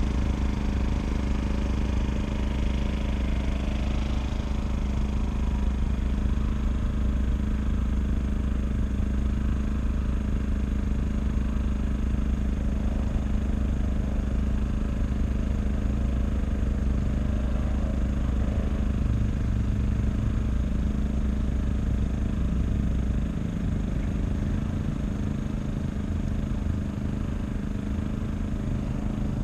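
A boat's engine running steadily, a low, even drone. The deepest part of the rumble eases about three-quarters of the way through.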